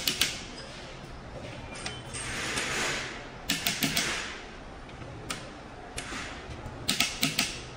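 Hand ratchet wrench clicking in short runs of three or four clicks, swung back between pulls while bolts in a diesel engine block are tightened. A brief hiss swells up about two to three seconds in.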